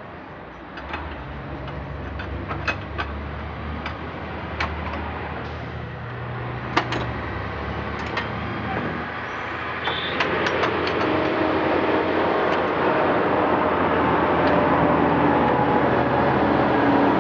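Scattered metallic clicks and clinks of hand tools on a riding lawn mower's parts over a low hum. From about ten seconds in, a louder engine starts up and keeps running steadily, its source not shown.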